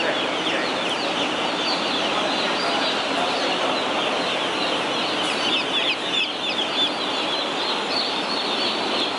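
A crowd of day-old hatchery chicks peeping all at once: a dense, continuous chorus of short, high, falling cheeps over a steady background noise.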